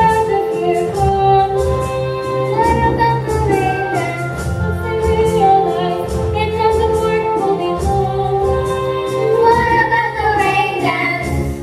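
Children's chorus singing the finale of a family opera, with instrumental accompaniment under it and a steady beat.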